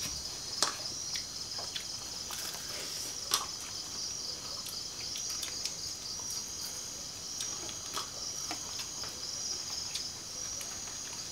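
Steady high-pitched chorus of night insects, pulsing without a break. A few sharp clinks of spoons on plates and a pot come through it, the clearest about half a second and about three seconds in.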